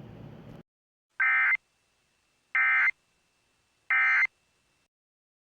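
Emergency Alert System End-of-Message signal: three short, identical bursts of SAME digital data tones, each under half a second and about a second apart, marking the close of the alert.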